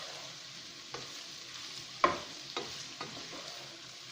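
Chopped vegetables and chicken sizzling in a frying pan while a utensil stirs them, with a few sharp knocks of the utensil against the pan. The loudest knock comes about two seconds in.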